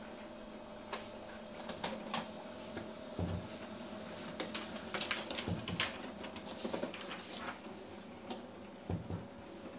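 Samsung CLP-365 colour laser printer printing a page: a steady hum of its motors with a constant tone, broken by scattered clicks and knocks as the sheet feeds through and comes out into the tray.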